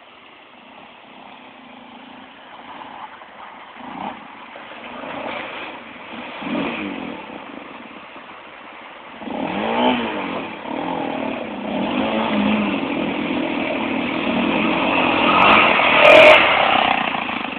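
Quad (ATV) engine revving in repeated surges as it crosses the creek and climbs the bank, growing steadily louder as it comes near and loudest near the end.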